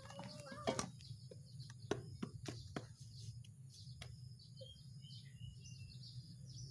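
Scattered sharp clicks and light knocks from a homemade pipe-and-disc briquette press being worked into a PVC mould of packed sawdust, with a few short bird chirps about halfway through, over a steady low hum.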